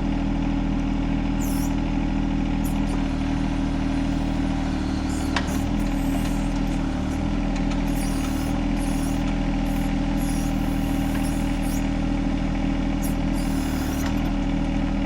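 John Deere 1025R compact tractor's three-cylinder diesel engine running steadily at a constant speed, with one sharp click about five seconds in.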